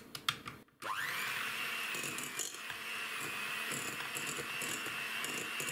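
Electric hand mixer with twin beaters switched on after a few clicks: its motor whine rises quickly about a second in, then runs steadily as the beaters work an egg into thick choux pastry dough.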